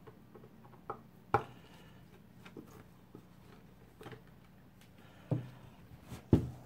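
Handling noise from an AVO 8 analogue multimeter in its case being moved about on a bench: a few sharp clicks and knocks, the loudest about a second and a half in and near the end.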